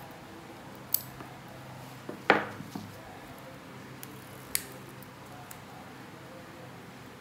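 Steel pliers and tweezers clipping and picking at a thick, overgrown toenail: a few sharp snips and clicks, the loudest a crack about two seconds in with a brief ring after it.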